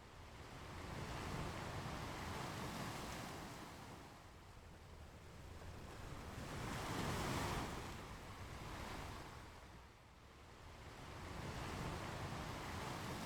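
Ocean waves breaking and washing up a beach. The surf noise swells and fades in slow surges about five seconds apart, loudest about seven seconds in.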